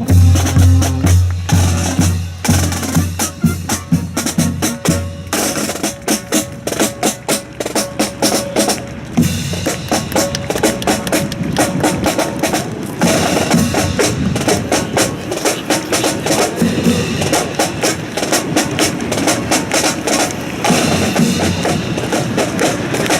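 Music with a heavy drum part: a quick run of snare and bass drum strikes and rolls. Low held notes sit under the drums for the first five seconds or so.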